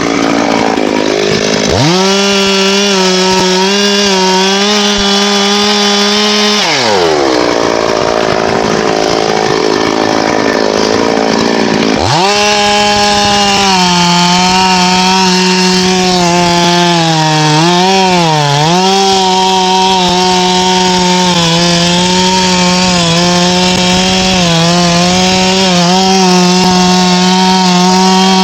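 Two-stroke chainsaw revved to full throttle about two seconds in, then dropping back to a low run after about five seconds. It runs at full throttle again from about twelve seconds on, with a brief dip and wobble in speed partway through, as it cuts wood.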